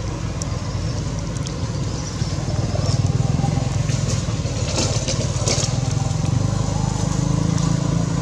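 An engine running steadily at idle, a low, rapidly pulsing hum, with a few brief high-pitched clicks about four to five seconds in.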